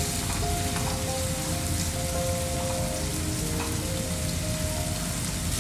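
Spice paste sizzling steadily in hot ghee and oil in a frying pan as it is sautéed. Soft background music with long held notes plays under it.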